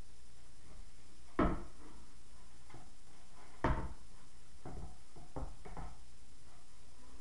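Knocks and clunks of a skateboard and its parts being handled on a table during setup: two sharp knocks about two seconds apart, then a quick run of lighter clunks.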